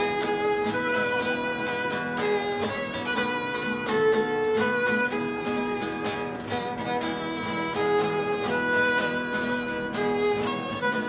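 A violin playing a melody of held notes over rhythmic strummed acoustic guitar chords.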